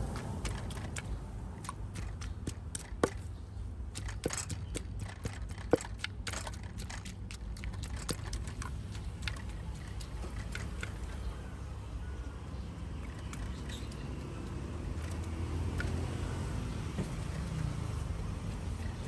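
Quick, irregular clicks and knocks of kitchen utensils at a food stall, thick in the first half and sparser later, over a steady low rumble of street traffic.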